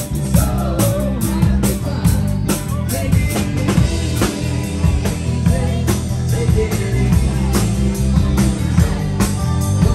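Live rock band playing: a drum kit keeping a steady, even beat over bass and electric guitar.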